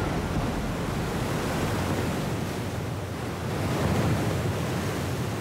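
Ocean surf breaking against a fossil-coral rock shore: a steady, noisy rush of crashing water and spray that swells to its loudest about four seconds in.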